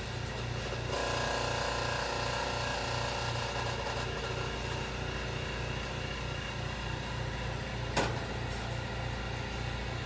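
Steady low mechanical hum of running machinery in a small room, with a higher steady tone added from about a second in for roughly three seconds. There is a single sharp knock about eight seconds in.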